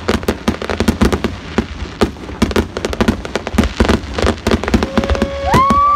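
Aerial fireworks going off in a dense barrage: sharp bangs and crackles several times a second with no let-up. Near the end a steady high tone slides up and holds.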